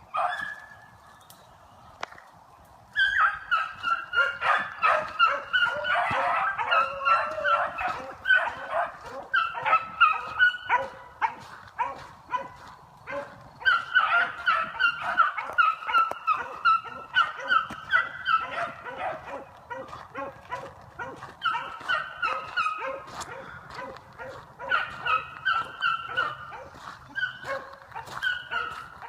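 A pack of beagles baying together on a running trail, several dogs calling over one another in quick repeated notes. After a single short call at the start, the chorus breaks out about three seconds in and carries on with brief lulls.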